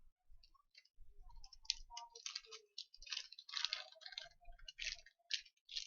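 Irregular light clicks and crinkly rustling from small electronic parts and their plastic bags being handled, in a quick string of short crisp bursts that thickens from about a second in.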